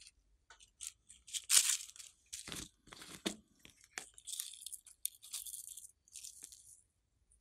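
Small plastic jar of flower-shaped confetti handled and the confetti shaken out into a palm. Irregular crinkly rustles and light clicks, loudest about one and a half seconds in, then a lighter hissing rattle as the confetti pours out.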